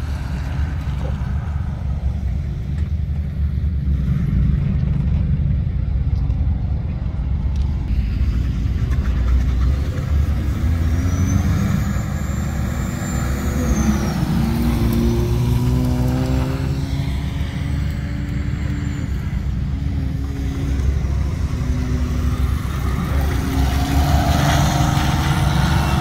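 Cars driving around a wet circuit corner: engines revving, their pitch climbing several times as they accelerate out of the bend, over a constant heavy low rumble.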